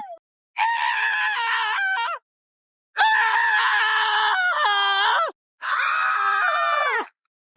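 Cartoon character screams from a sound-effects pack: three separate long, high-pitched screams, cut apart by dead silence, each dropping in pitch as it ends.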